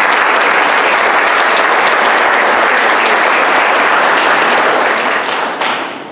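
Audience applauding, a steady mass of clapping that dies away near the end.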